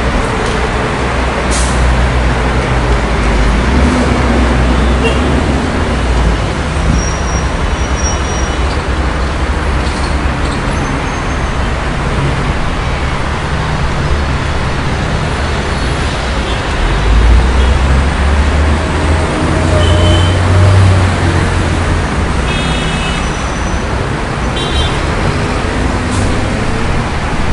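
City street traffic: a steady rumble of passing cars, buses and trucks, with a heavy vehicle's engine swelling louder partway through and a few short high-pitched squeaks near the end.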